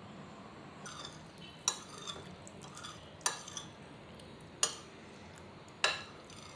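Metal spoons clinking and scraping against a ceramic plate. Four sharper clinks come about a second and a half apart, with lighter scrapes and taps between them.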